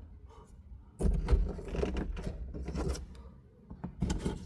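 Plastic interior roof-lining trim being handled and tugged at inside a car's cabin: a cluster of clicks, knocks and scrapes with a low bump starts about a second in, then quieter handling, with a few more clicks near the end.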